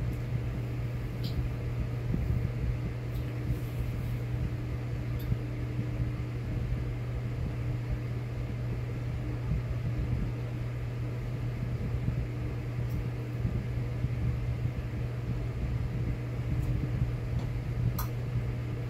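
Steady low electrical hum with a light hiss, with a couple of faint ticks about a second in and near the end.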